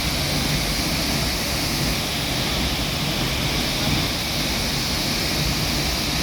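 Steady rushing of a waterfall, an even, unbroken roar of falling water.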